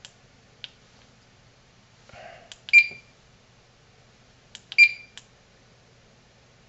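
Furuno FCV-585 fish finder giving two short, high beeps about two seconds apart as keys on its front panel are pressed, with faint clicks of the buttons around them.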